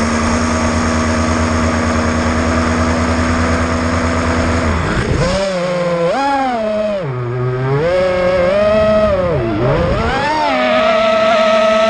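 Eachine Wizard X220 racing quadcopter's brushless motors whining, first at a steady pitch, then rising and falling repeatedly with throttle changes about halfway through, and settling at a higher steady pitch near the end.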